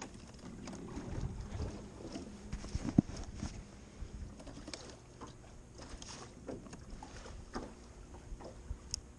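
Handling noise in a small aluminum fishing boat: low rumbling knocks against the hull, one sharp knock about three seconds in, then scattered small clicks as a spinning rod and reel are worked.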